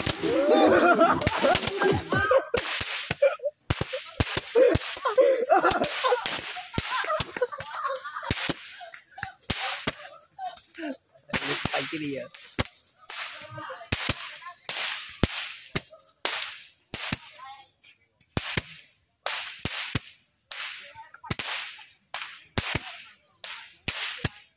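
Handheld roman candle fireworks firing a long series of sharp cracks: a dense, loud volley in the first several seconds, then single shots about every half second to a second, growing fainter near the end.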